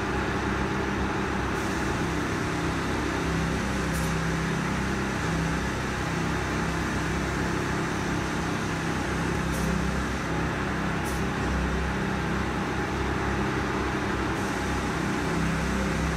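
Steady machine-like hum and hiss with a low drone, and a few faint ticks.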